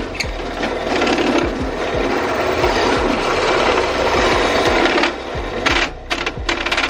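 A tool cutting a hole for a power-jack connector in the casing of a Bose S1 Pro speaker: a steady harsh grinding-scraping for about five seconds, then it stops, with a few short bursts near the end.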